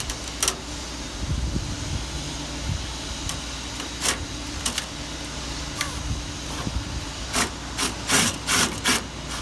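Metal vent pieces being handled and fitted against a smoker's steel body: a run of short clicks and scrapes, scattered at first and coming in quick succession near the end, over a steady low hum.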